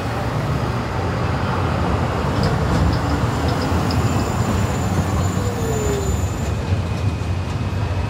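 Zürich city tram pulling into a stop: a steady low rumble of its running gear on the rails. A short run of light clicks comes about three seconds in, and a thin high whine follows in the second half.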